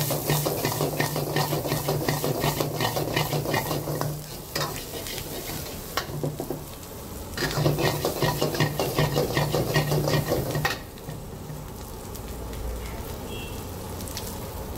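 Steel ladle scraping rapidly around a wok of frying onions and green chillies, in two bouts of stirring over a steady sizzle. The second bout stops about eleven seconds in, leaving only the quieter sizzle.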